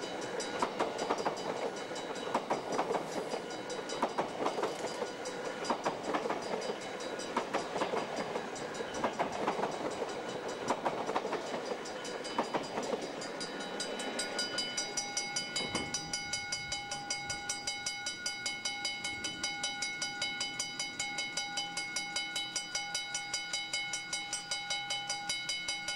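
A double-deck intercity train passes close by, its wheels clattering over the rail joints, for about the first fourteen seconds. Then the level crossing's mechanical bells are heard ringing on alone, in rapid, evenly spaced strokes.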